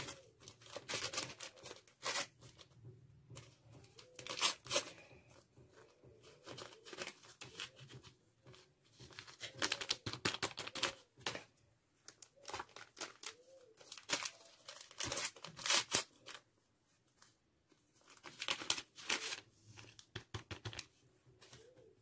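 Hand whisk beating thick cupcake batter in a glass bowl: wet scraping and clicking strokes against the bowl, coming in bursts with short pauses between.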